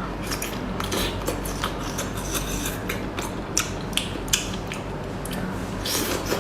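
Close-up eating sounds of octopus being bitten and chewed: irregular mouth clicks and smacks, over a low steady hum.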